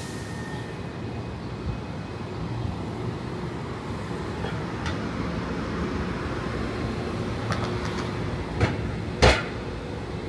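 City street traffic: a steady hum of cars, with one passing close in the middle. Two sharp knocks sound near the end, the second louder.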